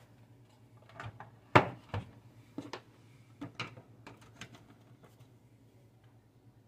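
Plastic battery charger housing being handled, turned over and set down: a run of knocks and clicks, the loudest about a second and a half in, dying away after about four and a half seconds.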